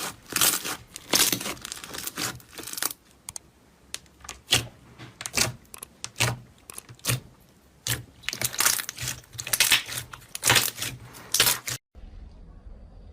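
Crunchy slime being pressed and pulled by hand: irregular crackling, crinkling pops in quick clusters. About twelve seconds in it cuts off abruptly to a quieter low hum.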